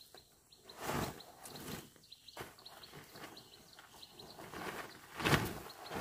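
Plastic tarpaulin rustling and swishing as it is pulled and shaken out, in a few bursts about a second in and again, loudest, near the end. Rapid high chirping, about three short notes a second, runs underneath.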